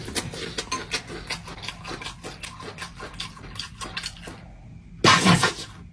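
Open-mouthed chewing of Takis rolled tortilla chips: many quick crunches. About five seconds in comes a brief loud vocal outburst.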